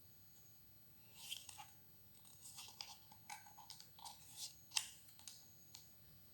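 Faint rustling and crinkling of a children's flap book being handled as its card flaps are lifted and pages turned, with a sharper paper snap a little past the middle.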